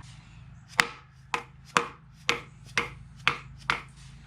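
Seven sharp hammer taps, about two a second, driving the front crankshaft seal into the timing cover of a Chevy 5.3 LS V8.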